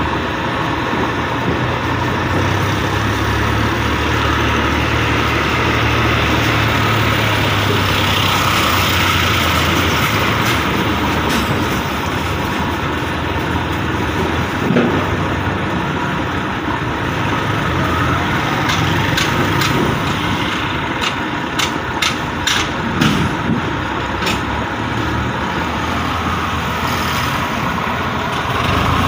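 Diesel tractor engine idling steadily, with a run of sharp clicks about twenty seconds in.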